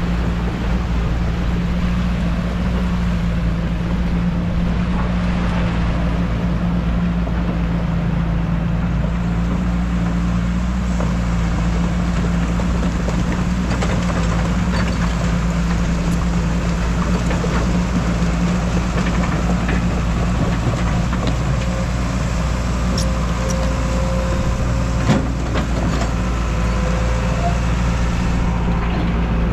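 An engine running steadily at a constant pitch, with a single sharp knock near the end.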